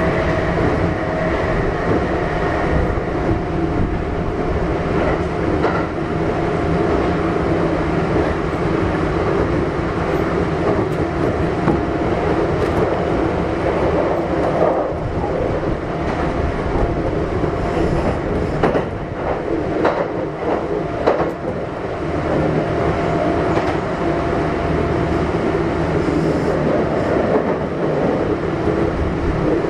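Kintetsu 1233 series electric train running at speed, heard from inside the car: a steady rumble of wheels and running gear with a faint steady whine. About two-thirds of the way through, the wheels clatter over a run of track joints.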